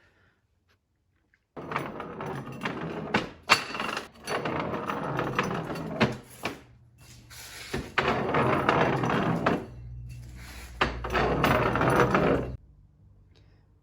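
A wheel being rolled and handled, giving scraping, rolling noise with several sharp knocks in three stretches of a few seconds. The last stretch has a low rumble.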